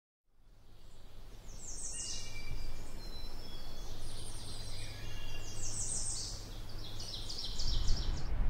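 Birds chirping and trilling in quick runs of high repeated notes over a steady low rumble, fading in at the start; the rumble swells louder near the end.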